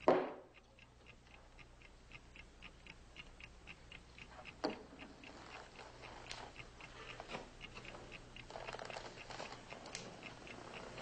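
Clock or watch ticking steadily, about four ticks a second, marking time during a tense wait. A single sharp knock sounds about four and a half seconds in.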